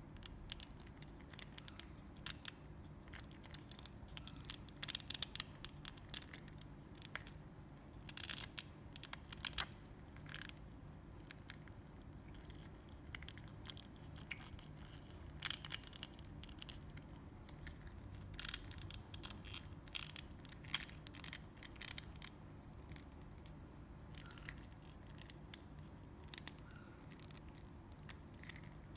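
Scattered small clicks and scrapes of hard plastic parts of an anime figure being handled and worked loose by hand, over a steady low hum.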